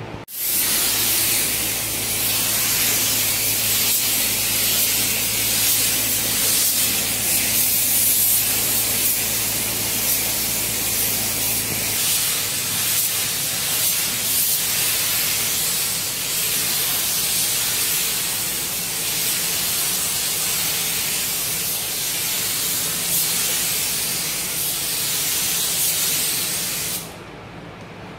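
Compressed-air paint spray gun hissing steadily as it lays a light first coat of basecoat paint. The spraying stops about a second before the end.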